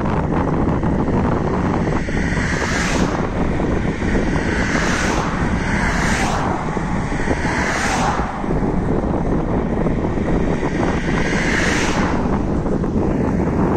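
Wind buffeting the microphone: a loud, steady rumble, with several short whooshes that rise and fall.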